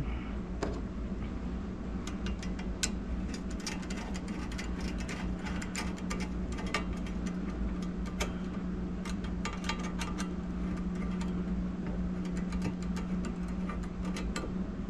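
Irregular small metallic clicks and ticks of a screwdriver turning the worm-drive screw of a metal hose clamp, tightening it around a motor housing, over a steady low hum.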